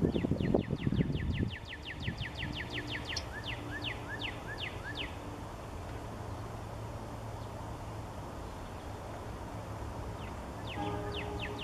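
Yellow-rumped warbler singing: a loose trill of about five quick down-slurred notes a second, which slows into a few two-part notes and stops about five seconds in. A second trill starts near the end. A low rumble fills the first second and a half, over a steady low hum.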